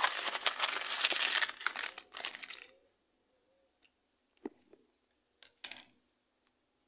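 A printed paper rocket wrapper being crumpled and crinkled in the hand for about the first two and a half seconds. Then a few light clicks.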